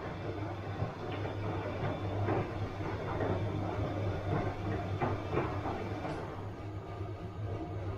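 Bosch washing machine running: a steady low motor hum under the uneven swish and knock of the turning drum and load, with a few louder knocks around one, two and five seconds in.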